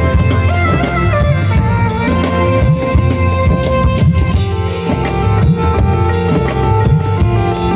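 Live band music over a PA system: a guitar-led melody with drums and a heavy bass, loud and continuous.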